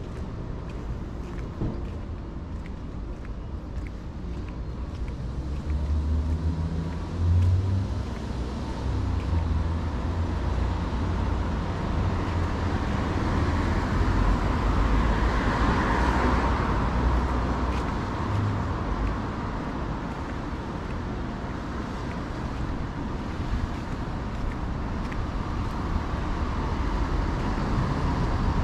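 Road traffic noise, with one vehicle passing close by that grows louder, is loudest about halfway through, then fades.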